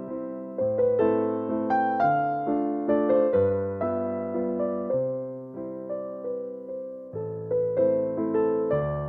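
Background music: a gentle electric piano playing a steady series of struck chords, each note decaying before the next.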